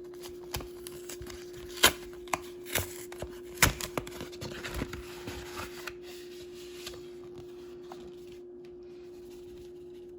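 A packet of peel-and-stick vinyl stickers being handled and opened by hand: rustling packaging and paper with sharp clicks and taps, the loudest about two and three and a half seconds in. The handling dies away after about seven seconds, leaving a steady faint hum.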